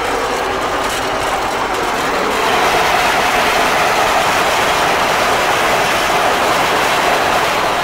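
Fortschritt E303 self-propelled windrower running under load while mowing clover, heard from the cab: engine and header cutting mechanism working steadily, a little louder from about two and a half seconds in.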